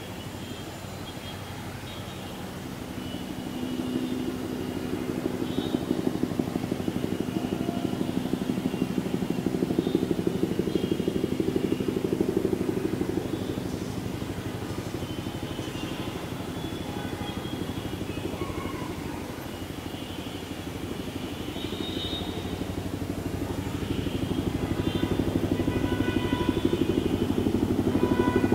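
Bell 212 helicopter flying overhead, the steady beat of its two-bladed rotor and its engine noise. It swells a few seconds in, eases off in the middle, and grows louder again near the end as it comes closer.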